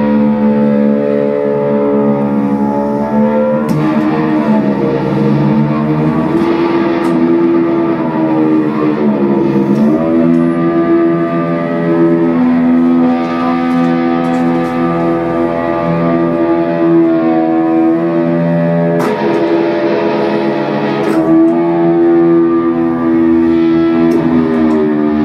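Electric guitar through effects, holding sustained chords whose pitches slowly bend and dip, with a few sharp clicks.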